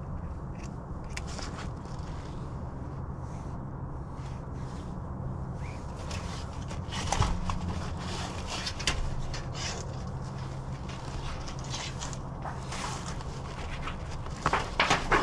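Scattered light scrapes and clicks of hand tools and sheet-metal counter flashing being handled, building to a louder run of metal scraping near the end as the flashing is held against the brick chimney. A steady low rumble lies underneath.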